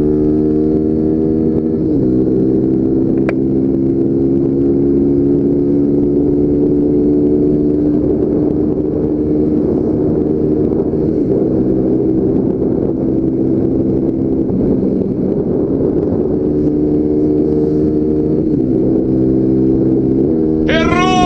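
Yamaha Factor 150's single-cylinder four-stroke engine accelerating hard in a motorcycle race, heard from the rider's seat with wind noise. Its pitch climbs in each gear and drops back at several gear changes.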